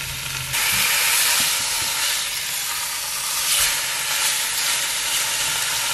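Beef stew meat and onions frying in hot oil in an enameled Dutch oven: a steady, loud sizzle that jumps up sharply about half a second in as the meat goes into the pot.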